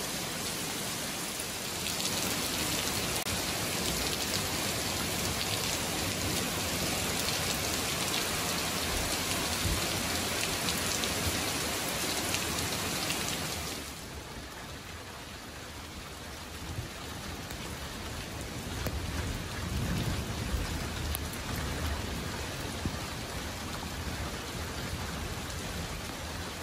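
Heavy rain pouring down, a dense steady hiss. About halfway through it drops to a quieter, lighter rain, and a low rumble of thunder comes in a little later.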